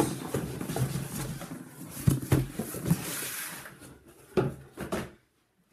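Cardboard boxes being handled: an inner box scraping out of an outer shipping carton, with several sharp knocks of cardboard on a wooden table. The sound cuts out suddenly near the end.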